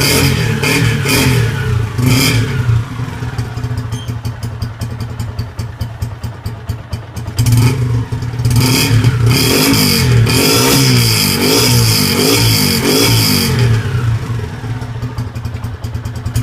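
Motorcycle engine running through a newly fitted Roncar Turbo aftermarket exhaust. It idles, is blipped quickly a few times in the first couple of seconds and again about eight seconds in, and is held at higher revs with a wavering pitch from about ten to thirteen seconds before dropping back to idle.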